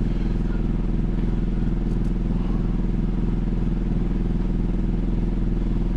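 A steady low drone from an engine or motor running without change, with a faint click about two seconds in.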